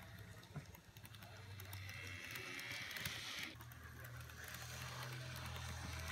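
Kato N-gauge Glacier Express model train running on its track: a faint low hum from the small motor with a light hiss and scattered clicks of wheels on rail. The sound cuts off sharply about three and a half seconds in, then builds again.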